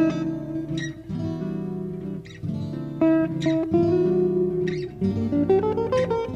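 1985 Gibson J-45 acoustic guitar with a spruce top and Brazilian rosewood back, played with strummed chords that ring on between strokes. A short rising run of single notes comes about five seconds in.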